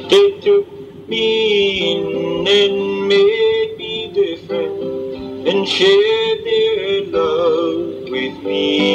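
Music: an instrumental passage of the song, plucked strings playing held notes, with a few sliding, wavering tones.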